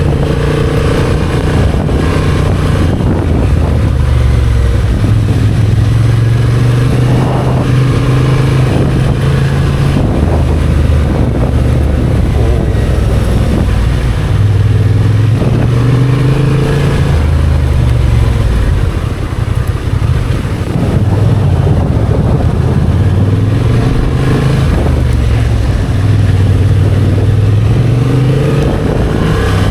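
Motorcycle engine running while riding, its note rising and falling repeatedly with throttle and gear changes, with a brief drop near the middle.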